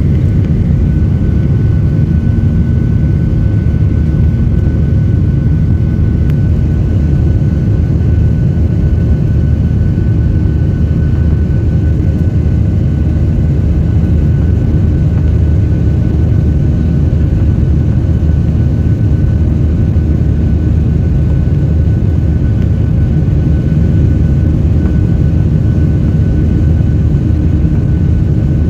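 Boeing 737-800 cabin noise: its CFM56 jet engines and airflow make a steady low rumble inside the cabin, with a faint steady whine above it.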